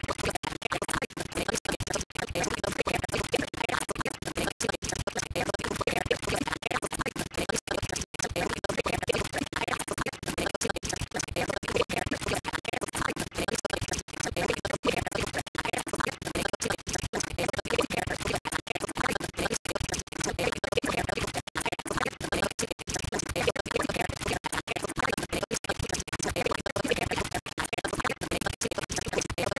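Music, dense and busy, with many brief breaks in the sound.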